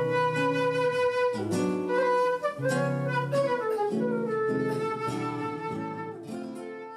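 Guitar and transverse flute playing instrumental tango music: the flute holds long melody notes over plucked guitar bass and chords, and the sound dies away at the very end.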